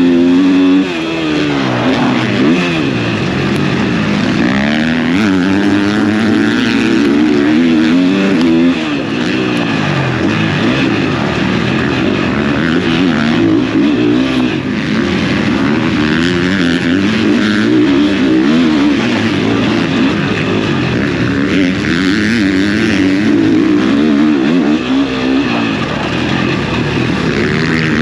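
Motocross bike engine being ridden hard, its pitch climbing and dropping again and again as the throttle is opened and shut through the gears.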